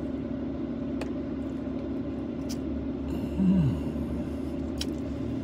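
Steady hum of a parked BMW idling, heard inside the cabin. About three and a half seconds in there is a short vocal sound that falls in pitch, and a few faint clicks.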